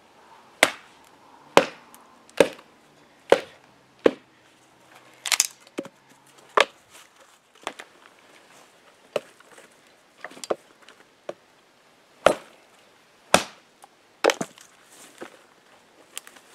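Condor Bush Knife, a 420HC stainless billhook-style blade, chopping through small branches and brush, about fifteen sharp woody strikes at roughly one a second, unevenly spaced.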